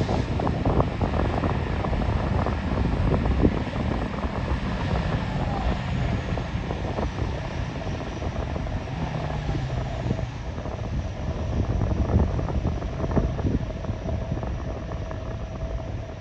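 Aircraft engines running out of sight: a steady engine noise with a faint whining tone and a faint tone gliding in pitch around the middle, over a low rumble of wind on the microphone.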